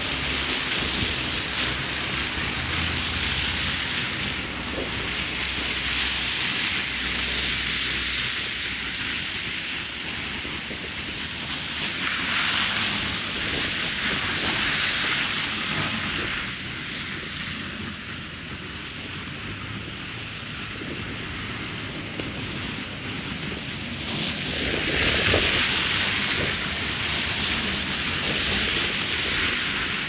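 Cars passing one after another on a slushy, snow-covered street, their tyres hissing through the wet slush in three swells a few seconds long. A backhoe's engine runs low near the start.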